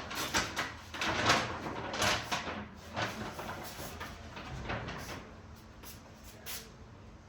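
Household clatter: a quick run of knocks and scrapes of things being handled and a door or drawer being moved, busiest in the first three seconds, then a few fainter clicks.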